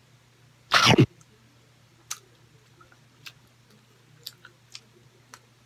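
A person eating grilled street food: one loud breathy burst about a second in, then faint scattered mouth clicks of chewing over a steady low hum.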